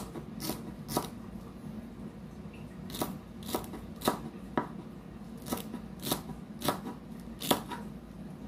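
Kitchen knife chopping a bunch of celery leaves on a wooden cutting board: sharp knocks of the blade on the board, about two a second in short runs, with a pause of about two seconds after the first few.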